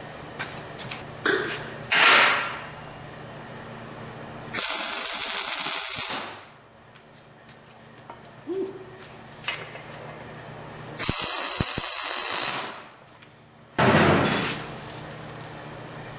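Tack welding with a wire-feed (MIG) welder: two steady crackling welds of about a second and a half each, one about four and a half seconds in and one near eleven seconds, with shorter loud bursts and small clanks between, joining a steel plate with tack welds.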